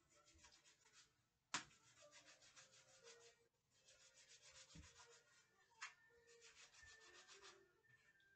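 Faint, rapid scraping at the kitchen counter in runs of quick strokes. Each run lasts about two seconds, and a sharp knock comes about a second and a half in and again near six seconds.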